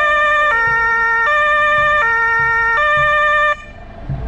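German fire-service two-tone siren (Martinshorn) alternating between a high and a low tone, each held about three-quarters of a second. It cuts off about three and a half seconds in.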